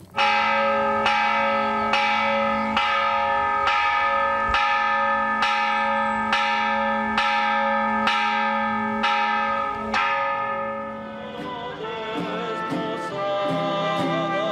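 A single church bell tolling, struck about once a second for roughly a dozen strokes, each stroke ringing on into the next. The bell stops about ten seconds in, and singing with guitar accompaniment follows near the end.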